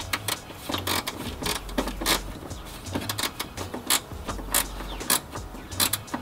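Hand socket ratchet clicking as bracket bolts are snugged down, sharp clicks at about three a second with small pauses between strokes.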